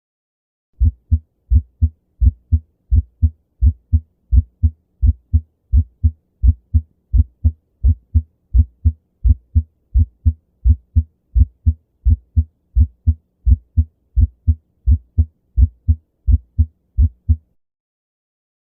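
Human heart sounds: a steady, regular run of short low thumps, the lub-dub of the heartbeat, that stops about seventeen seconds in.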